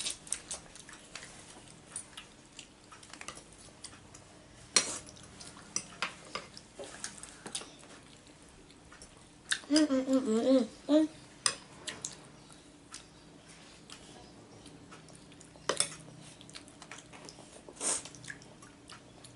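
Spoon and cutlery clinking against a bowl of meatball soup during eating, in scattered light clicks with a few sharper clinks. A brief voice is heard about ten seconds in.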